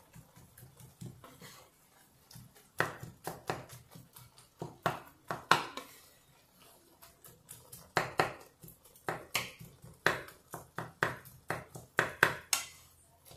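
Wooden spatula knocking and scraping against a frying pan as goat offal, tomatoes and onion are mashed and cut up in it. Irregular sharp taps, often several in quick succession.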